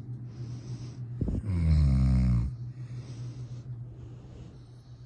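Snoring: one loud, drawn-out pitched snore lasting about a second, starting about a second and a half in. Softer breathing noise comes before and after it.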